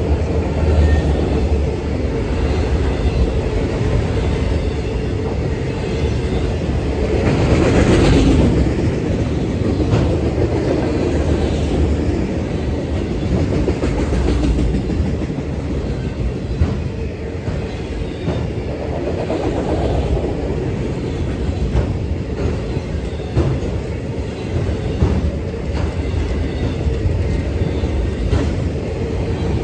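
Freight train of autorack cars rolling past close by: a steady rumble of steel wheels on rail, with clicks as the wheels cross rail joints. It swells briefly and brightens about eight seconds in.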